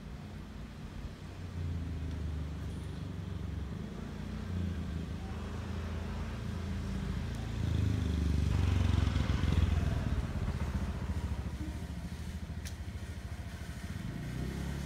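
Low rumble of a motor vehicle's engine running nearby, swelling to its loudest about halfway through and then easing off, as if passing by.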